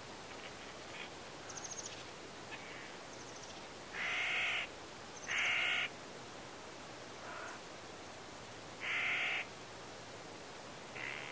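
A bird's harsh calls: three loud ones of about half a second each, around four, five and a half and nine seconds in, with fainter calls between them and brief high chirps near the start.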